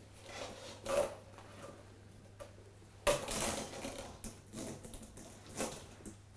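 Pillow, bedding and plastic mask hose rustling and rubbing as a person shifts onto his side in bed and tucks the hose behind the pillow: three faint bursts, the longest about three seconds in.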